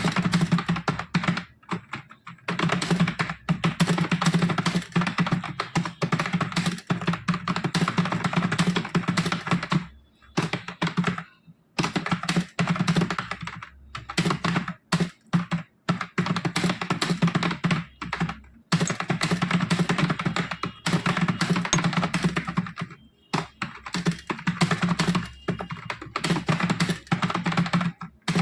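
Fast touch-typing on a computer keyboard: rapid streams of key clicks in long bursts, broken by short pauses, the longest about ten seconds in.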